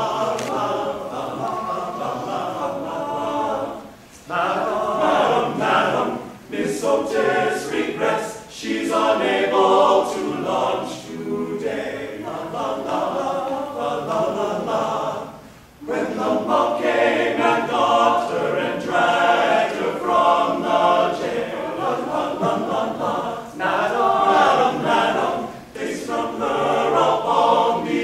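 Large men's chorus singing in full harmony, with short breaks between phrases about four and sixteen seconds in.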